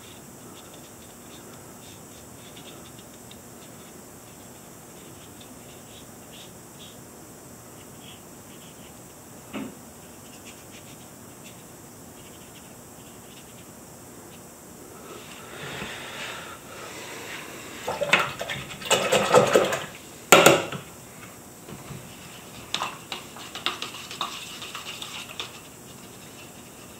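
Soft scratches of a watercolor brush working on paper, then, from about halfway through, a brush swished and tapped in a small cup of watercolor and water, with louder clinks and sloshes for a few seconds.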